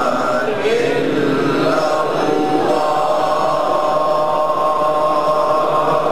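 Voices chanting dhikr together in long, drawn-out held notes.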